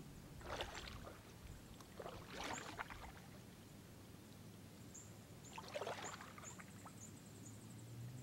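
Kayak paddle strokes splashing in calm pond water beside a Pelican Catch 120 fishing kayak: three splashy strokes a couple of seconds apart.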